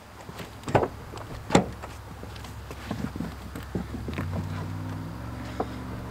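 Footsteps on asphalt and a sedan's rear door being opened and shut as a hard plastic bow case is loaded into the back seat. A steady low hum starts about four seconds in and rises a step about a second later.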